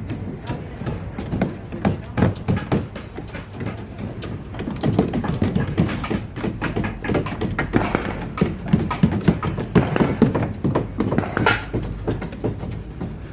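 Voices talking over irregular taps and knocks, as of building work on a construction site.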